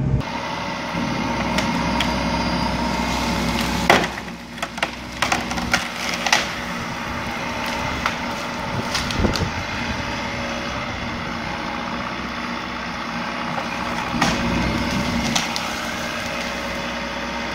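Bobcat compact excavator's diesel engine running steadily, with a cluster of sharp cracks and snaps of breaking wood about four to six and a half seconds in and a few single cracks later, as trees and brush are pushed over.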